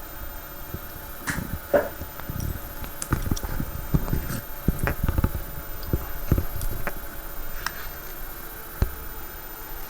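Irregular light knocks, clicks and rumbles of objects being handled close to the microphone, over a faint steady hum.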